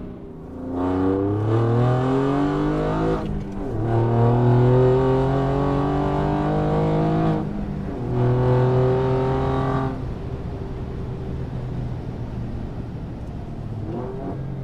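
Twin-turbo six-cylinder sports car engine accelerating hard, rising in pitch through two gears with a short break at each upshift, then holding a third gear briefly. It settles to a quieter, steady running note for the last few seconds.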